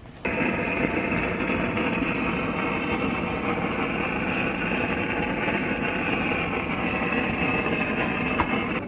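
1950s David Bradley chainsaw's two-stroke engine running steadily on its freshly rebuilt carburetor. It starts suddenly and cuts off just before the end.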